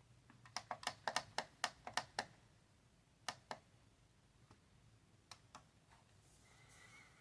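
Light plastic clicks of button presses on a digital scale switching its display from ounces to grams: a quick run of about eight in the first two seconds, then two pairs of clicks a couple of seconds apart.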